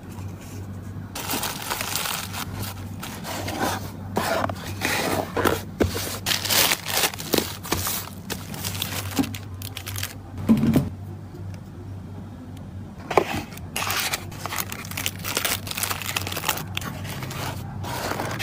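Plastic packaging and wrapped washi tape rolls rustling and crinkling as they are handled and packed, with cardboard scraping, in irregular bursts. One louder knock comes just past the middle, followed by a lull of about two seconds before the rustling resumes.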